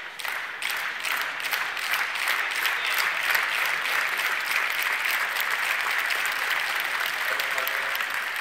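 Audience applauding: a steady, dense clapping throughout.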